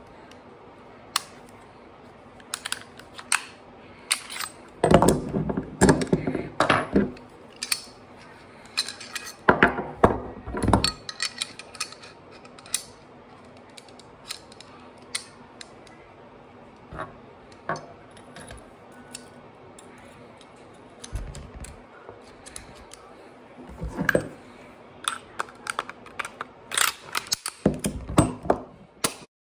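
Semi-automatic pistol being field-stripped and reassembled by hand: a long run of sharp metal clicks and clacks of the slide and parts, with heavier knocks of parts on a wooden tabletop coming in clusters, the busiest about five to eleven seconds in and near the end.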